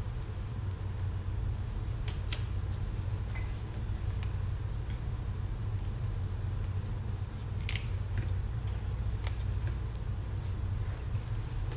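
Saluyot (jute mallow) leaves being plucked from their stems by hand into a plastic colander, with scattered crisp snaps and leafy rustles, over a steady low hum.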